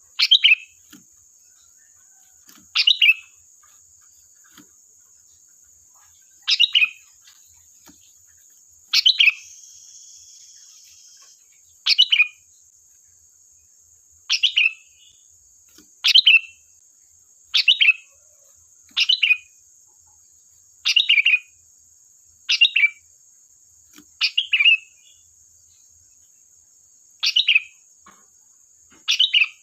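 Sooty-headed bulbul (kutilang) singing short, loud phrases, one every one to three seconds, over a steady high-pitched buzz.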